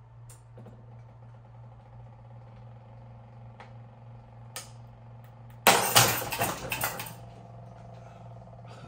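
3D-printed robot arm's stepper motors whining faintly as it moves, then about six seconds in a loud crash and rattle lasting about a second: the shaft holding the arm's second segment breaks under belt tension and the arm collapses.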